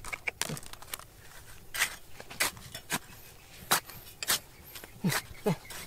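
A run of sharp, irregular knocks and clicks, about a dozen, roughly two a second.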